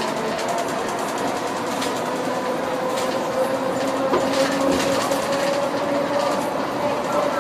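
ETI 14TrSF electric trolleybus's traction motor whining as the bus accelerates, the whine rising slowly in pitch over steady road rumble. Heard from inside the bus in a tunnel.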